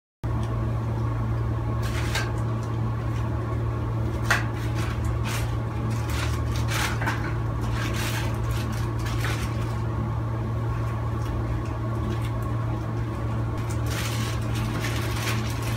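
Steady low hum throughout, with intermittent crinkling of a clear plastic bag and small clicks of plastic toy pieces being handled, busiest about four seconds in and again near the end.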